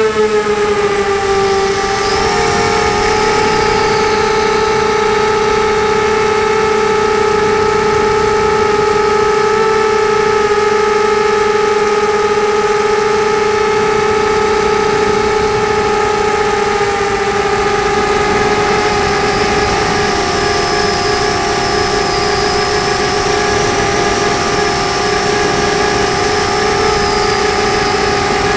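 FPV quadcopter's electric motors and propellers whining steadily in flight. The pitch drops in the first second, then holds level with small wavers.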